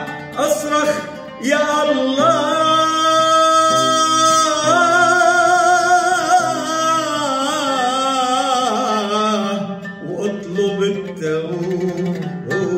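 A man singing an Arabic song in long, held, wavering notes, accompanied by his own oud.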